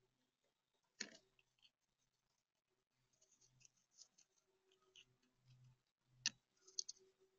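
Near silence broken by a few sharp clicks from a grey squirrel gnawing an acorn shell: one about a second in, then three close together near the end.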